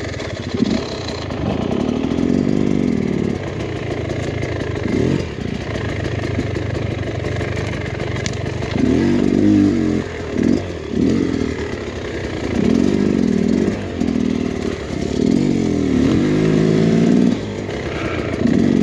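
Beta X-Trainer 300 two-stroke dirt bike engine, revving up in repeated surges and dropping back between them as the bike is ridden slowly over rocks and brush.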